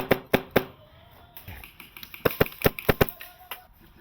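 HPA-powered airsoft rifle (MTW) firing two short strings of sharp cracks: about four rapid shots at the start and about six more from about two seconds in.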